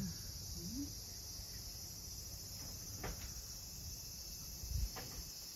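A steady, high-pitched chorus of insects, with a couple of faint short clicks about three and five seconds in and a soft low bump just before the second.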